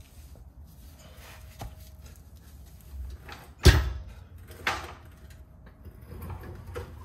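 Heavy metal knocks and clunks as a trailer axle's brake drum and hub are gripped and the axle is shifted into position. The loudest knock comes a bit past halfway, with a smaller one about a second later.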